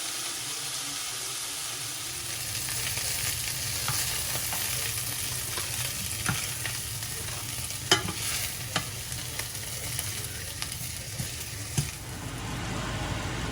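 Bourbon chicken frying and sizzling in a pan as it is stirred, with a utensil clicking against the pan several times, sharpest about eight seconds in. Near the end the sizzle fades and a low steady hum takes over.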